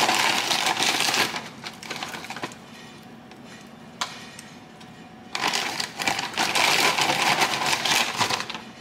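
Croutons going into a small salad bowl and the salad being tossed: two spells of dense rattling and crunching, about a second and then about three seconds long, with a quieter gap and a single click between them.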